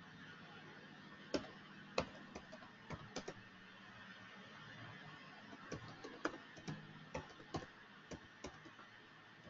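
Typing on a computer keyboard: irregular key clicks, beginning about a second in, over a faint steady hum.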